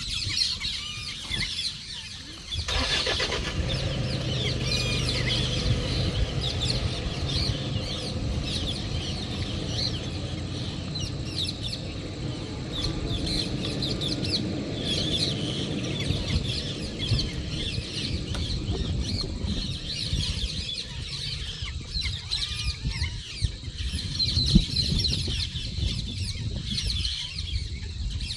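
Safari vehicle's engine starting about three seconds in and then running, with birds chirping throughout.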